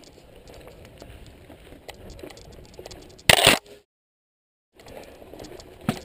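Mountain bike rattling and clattering over rocky trail, with a low rumble and many small ticks from the tyres and bike. A little over three seconds in there is a loud harsh crash of noise, then the sound cuts out completely for about a second, and a sharp knock comes near the end.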